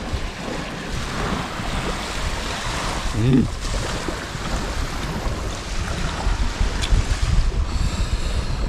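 Surf breaking on the beach, with wind buffeting the microphone in low rumbles.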